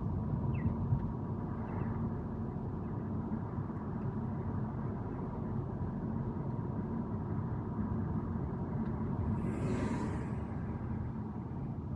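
Car driving through city traffic: a steady low rumble of road and engine noise, with a brief hiss swelling up and fading about ten seconds in.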